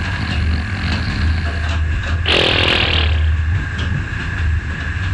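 A man snoring extremely loud in a train sleeper berth, with one harsh, rasping snore about two seconds in, over a steady low rumble.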